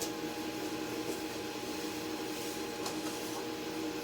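Cutting machine running with a steady hum, with a couple of faint clicks.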